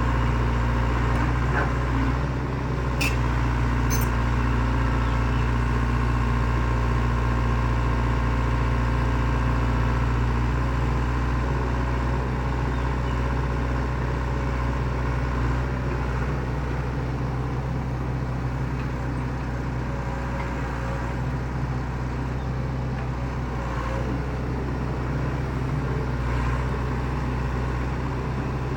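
Excavator's diesel engine running steadily under a constant drone, with two short clicks a few seconds in.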